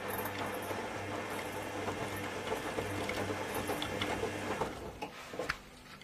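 Zanussi ZWF 1621 W front-loading washing machine running in its rinse stage: a steady hum with water swishing in the drum. It stops near the end, followed by a few clicks.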